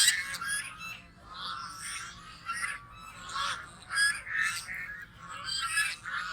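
A group of geese honking: many short, overlapping calls coming several times a second.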